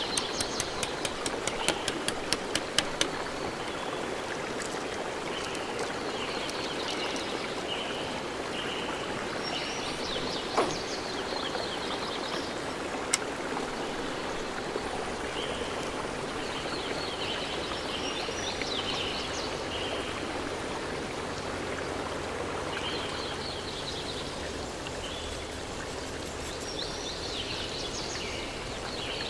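Steady outdoor background hiss with a high trilling call that comes and goes every few seconds. A quick run of sharp clicks, about four a second, sounds in the first three seconds, and one sharp click a little before the middle.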